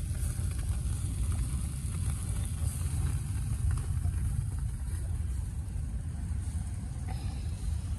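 Wind buffeting the microphone: a heavy, uneven low rumble over a steady hiss.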